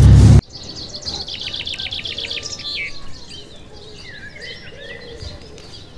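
A loud low car-cabin hum, with the end of a voice, cuts off less than half a second in. Small birds then chirp: a quick even run of high chirps for about two and a half seconds, followed by scattered calls.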